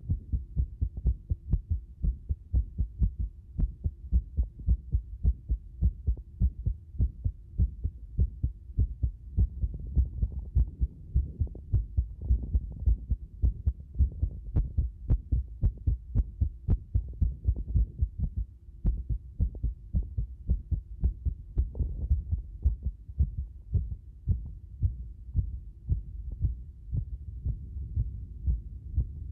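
Human heartbeat recorded close up: a continuous run of low lub-dub thuds at uneven spacing, which the uploader describes as heavily disordered, an irregular rhythm. A faint steady hum runs underneath.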